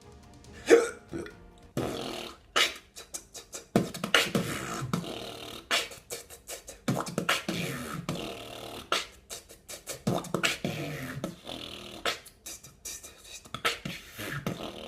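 Solo human beatboxing: a quick run of sharp mouth-made kick, snare and hi-hat sounds, opening with a loud hit about a second in.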